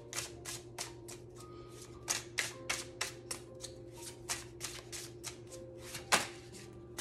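Tarot cards being shuffled by hand, an overhand shuffle: quick, irregular snaps and slaps as small packets of cards drop from one hand onto the other, several a second, with one sharper slap about six seconds in.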